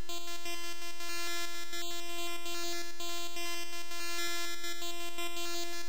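Bytebeat: computer-generated 8-bit audio from a one-line formula, playing a steady, buzzy synthesized tone with many overtones that holds one pitch.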